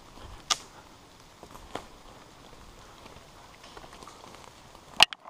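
Light rain: scattered drops ticking on the GoPro's housing and the surrounding leaves over a soft hiss, with a sharper tap about half a second in and a louder cluster of clicks near the end, after which the sound briefly cuts out.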